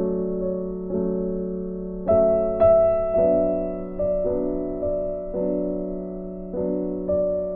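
Soft background piano music, with chords struck about once a second and each left to fade.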